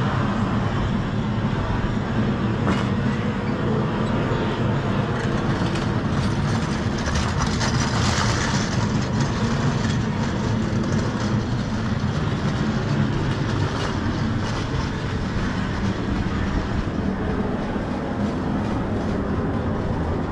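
Steady low rumble of passing vehicles on a city street, swelling into a brighter rushing sound about eight seconds in.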